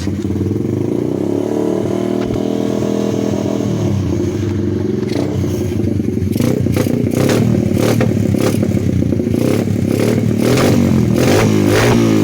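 125cc pit bike's single-cylinder engine running unevenly, with sharp pops in the exhaust that come more and more often from about halfway, and the revs rising and falling near the end. It is sneezing and backfiring into the muffler, which the owner thinks could come from an intake air leak at a missing manifold gasket.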